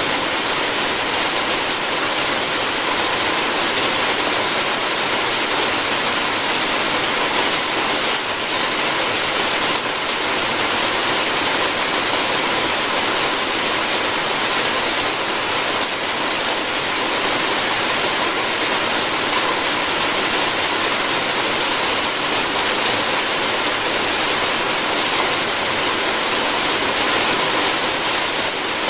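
Steady rain falling on a roof, a dense, even hiss with no letup.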